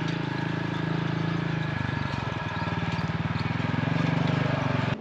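Side-by-side UTV engine running as it drives up a rough dirt trail, its note shifting about two seconds in and growing louder as it approaches.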